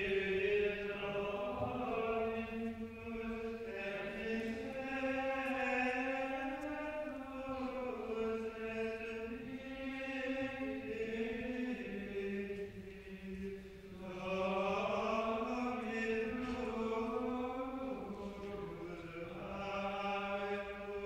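Liturgical chant sung in unison: one slow melodic line of voices rising and falling in long phrases, with a short break about 14 seconds in.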